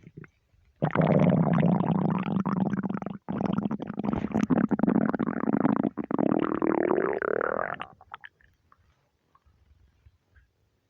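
Human stomach rumbling, loud and long: about seven seconds of dense gurgling, broken once by a short pause, rising in pitch near the end before it stops. The belly is half hungry and half gassy from overeating.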